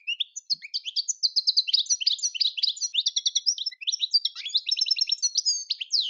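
European goldfinch singing: a fast, unbroken twittering run of short, high, tinkling notes and trills.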